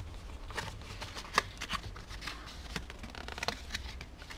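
Cardboard and paper rustling and scraping as a phone box's inner tray and a white paper insert are handled, with scattered small clicks and one sharper tap about a second and a half in.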